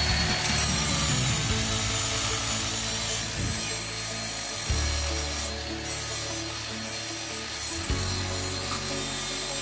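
Small right-angle grinder with a sanding disc grinding a cast-metal sewing-machine part held in a vise: a steady abrasive rasping hiss.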